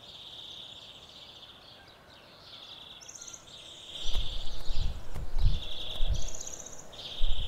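Insects trilling: a buzzy high-pitched chirp repeating in phrases of about a second, joined about three seconds in by a second, higher-pitched trill. From about four seconds in, irregular low thumps come and go and are the loudest sounds.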